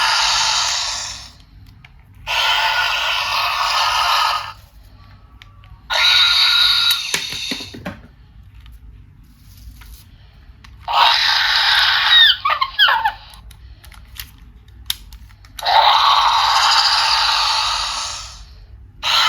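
Electronic dinosaur toy roars from a small built-in speaker, thin with no bass. About five harsh roars of roughly two seconds each, repeating every few seconds with short quiet gaps between.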